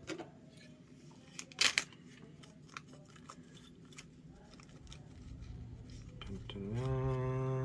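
Small plastic and metal parts of an Axial SCX24 rear axle being handled, with light clicks and one sharp click about two seconds in as the axle shafts are fitted. A steady pitched hum comes in near the end.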